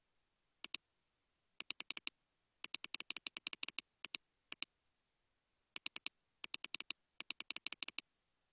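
Computer mouse button clicks, each a quick press-and-release pair, coming in runs of several pairs with short pauses between as a value is stepped up one click at a time.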